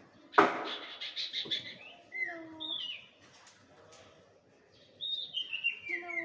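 A young pet bird calling: a sharp, harsh burst about half a second in, then quick chirps and runs of downward-stepping whistled notes, the second run starting about five seconds in.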